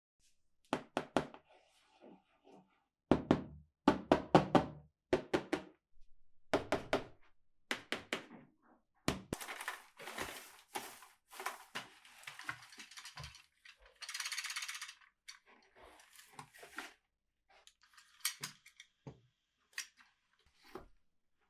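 Toys and their packaging being handled: a run of sharp knocks and thunks as pieces are picked up and set down. Around the middle come stretches of rustling and a short tearing hiss, then more light clicks.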